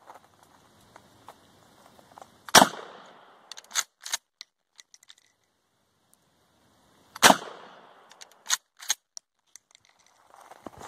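Two shots from a 12-gauge Mossberg pump shotgun firing 1¾-inch mini shells, about five seconds apart. Each shot is followed about a second later by a couple of sharp clacks as the pump action is worked.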